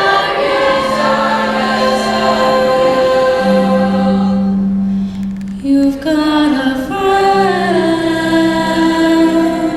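Show choir singing long held chords in several voice parts, breaking off briefly about five and a half seconds in and then coming back in.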